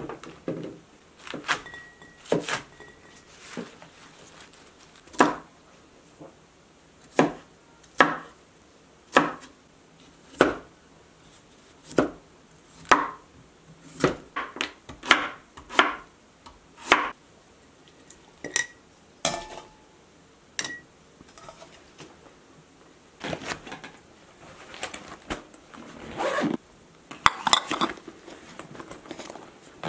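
A chef's knife chopping vegetables on a wooden cutting board: single sharp strokes, roughly one a second. Near the end comes a busier run of knocks and rustling.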